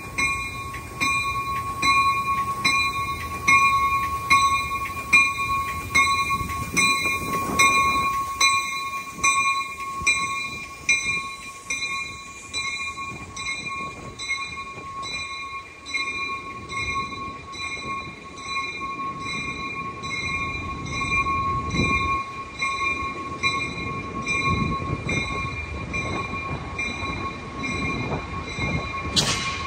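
Amtrak San Joaquin passenger train pulling out, its bilevel cars rolling past with a low, uneven rumble, while a warning bell rings steadily about twice a second. A sharp click comes just before the end.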